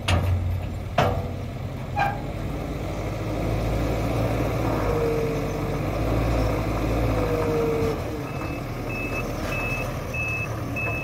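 JCB telehandler's diesel engine working as it loads manure, with a few sharp clanks from the bucket in the first two seconds and the engine rising under load midway, with two short whines. From about eight seconds in, a reversing alarm beeps steadily, a little under two beeps a second.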